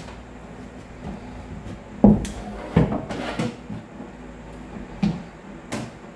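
Wooden paint stirrer pressing and tapping a rubber trim strip into the corner seam between bathroom-pod wall panels: a handful of irregular knocks and scuffs against the panels, the loudest about two seconds in.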